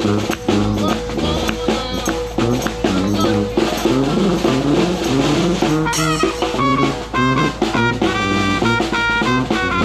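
New Orleans-style brass band music: a sousaphone walking a bass line under a snare drum groove, with the trumpet coming in on sustained notes about seven seconds in.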